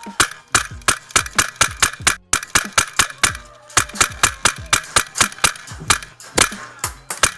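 Airsoft gun firing a fast string of sharp shots, about five a second, with one brief pause about two seconds in.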